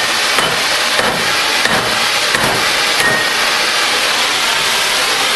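Oxy-fuel cutting torch cutting through steel railroad rail: a loud, steady hiss of the cutting jet with a few scattered pops.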